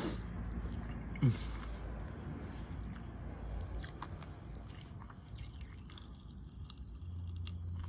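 Sour Pop Rocks popping candy crackling and fizzing in a mouth, many small scattered pops, with chewing. A short falling groan about a second in.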